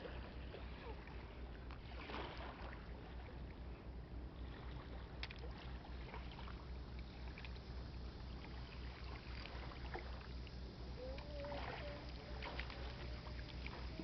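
Low, steady drone of a riverboat's engine on the Yangtze, with an even pulse in the hum. A thin wavering tone joins it near the end.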